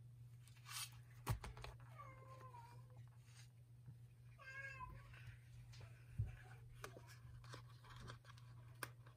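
A cat meowing twice, a short call about two seconds in and another in the middle. A sharp tap just before the first meow is the loudest sound, and a second, lighter tap comes a second or so after the second meow. A steady low hum runs underneath.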